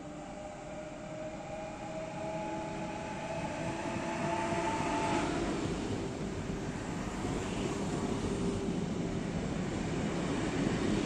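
CFL class 2200 double-deck electric multiple unit approaching. Its electric whine, a few steady tones rising slowly in pitch, fades about five seconds in under the louder rumble of wheels on rails as it runs close by.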